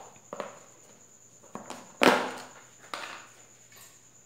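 Several light knocks and clicks of a plastic salt container being handled and set down on a wooden table, the loudest knock about two seconds in.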